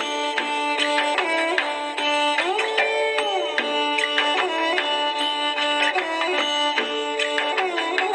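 Background music: a melody of held notes that slide up and down, over a steady run of quick percussion strikes.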